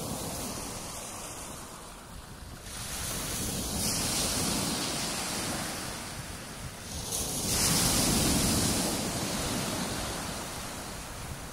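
Small waves breaking on a pebble beach. Two waves wash in one after the other, each swelling into a hiss over the pebbles before falling away.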